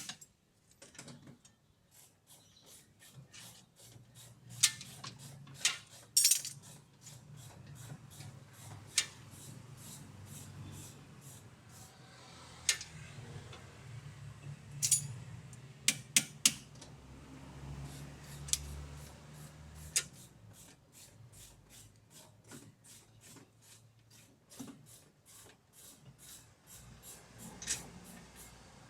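Metal hand tools clinking and clicking at irregular intervals during suspension work, with a low steady hum underneath that stops about 20 seconds in.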